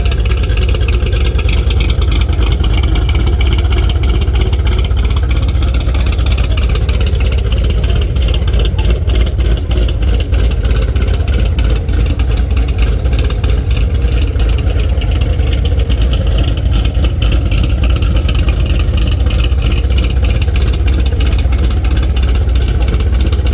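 Chevrolet Camaro's V8 with an aggressive aftermarket camshaft idling with a choppy, loping exhaust note.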